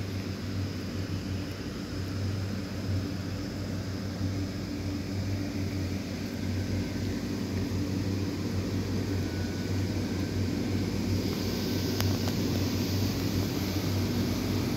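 Electric blower fans of inflatable lawn decorations humming steadily, a low motor drone with a steady hiss of rain over it.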